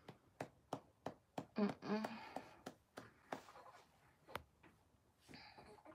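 A hand patting a baby's back in a steady rhythm, about three soft pats a second, with one sharper pat about four and a half seconds in.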